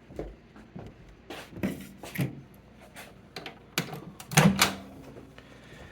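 A handful of separate clicks and knocks, the loudest about four and a half seconds in, like a microwave oven door being opened and latched shut.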